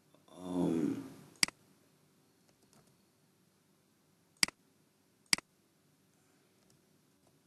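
Three sharp computer mouse clicks: one about a second and a half in, then two close together about four and a half and five and a half seconds in. Just before the first click, a brief wordless hum from a voice.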